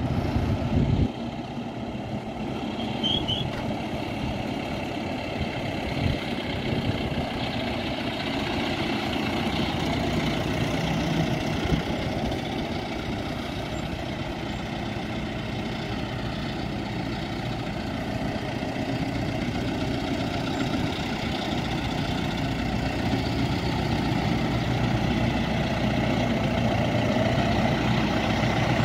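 John Deere 5085M tractor's four-cylinder diesel engine running steadily at low revs as the tractor drives up, growing louder as it nears. A brief louder rumble fills the first second.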